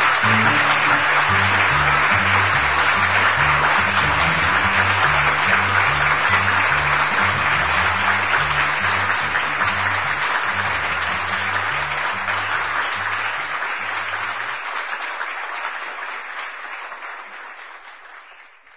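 Background music with a plucked bass line under loud, dense applause. The bass stops about fifteen seconds in, and the applause fades out at the end.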